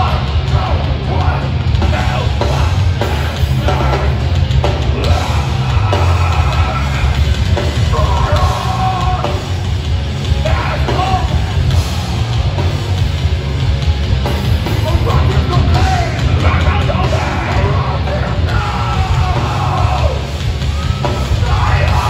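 Hardcore band playing live and loud: distorted electric guitars, bass and pounding drums, with the vocalist yelling over them.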